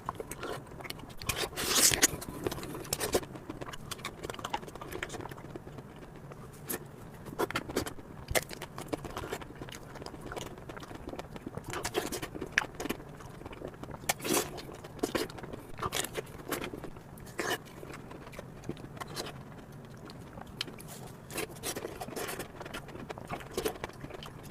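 Close-miked eating of chocolate ice cream: irregular wet mouth clicks and smacks, several a second and uneven in loudness.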